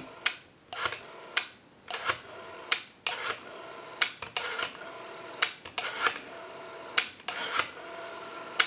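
Rotary dial of a Western Electric 202 telephone pulled round and let go again and again, each release a whirring spin back to rest set off by a sharp click. Several digits dialed one after another to check the dial's pulsing.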